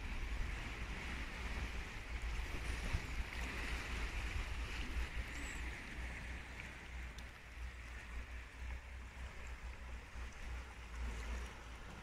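Steady rush of the swollen Tigris River flowing fast at high water, with gusts of wind buffeting the microphone as a low, uneven rumble.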